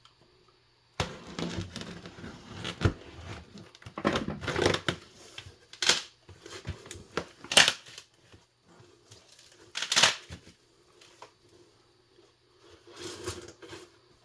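Shipping box being unpacked by hand: irregular rustling and crinkling of packaging with several sharp, loud tearing rips, such as tape or wrapping being torn off.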